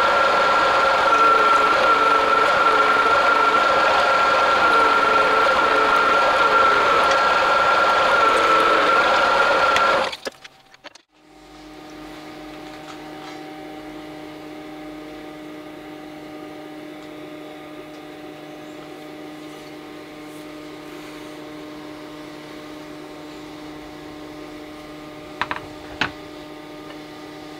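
Milling machine running with a drill bit boring into the end of a steel bar held in a machine vice, a steady machine sound with a high whine. About ten seconds in it cuts off and a much quieter steady hum remains, with two sharp knocks near the end as the steel rods are set down on the bench mat.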